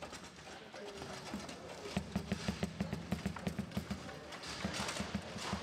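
Foosball table in play: the ball clacking against the players' figures and the table, with a run of quick, regular low knocks, about six a second, in the middle.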